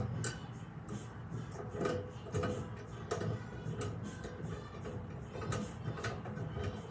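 Irregular light clicks and taps of metal organizer parts and small screws being handled during assembly, over a steady low hum.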